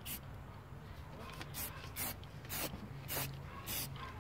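Aerosol spray-paint can hissing in short bursts, about two a second.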